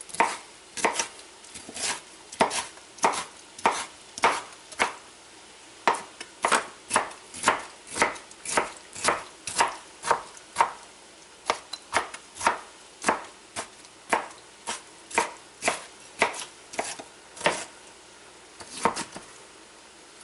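Chef's knife chopping pickle slices on a plastic cutting board, a steady run of knocks at about two a second. There is a short pause about five seconds in, and the last chops come near the end.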